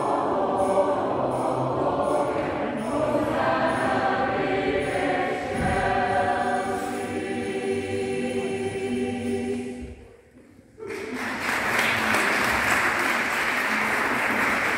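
A choir singing held chords, breaking off about ten seconds in. After a short pause comes a steady even noise of many hands clapping: applause.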